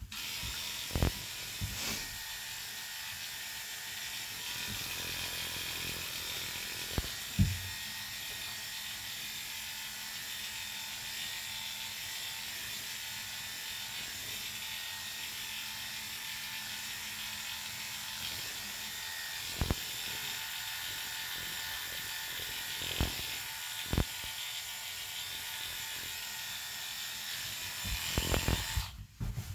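Electric dog-grooming clippers running steadily as they clip an Airedale terrier's coat, switched on at the start and off just before the end. A few short knocks come in between.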